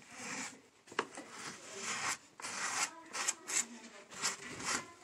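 A card scraping and rubbing over mesh drywall tape on a wall: a run of short, raspy strokes, with a sharp click about a second in.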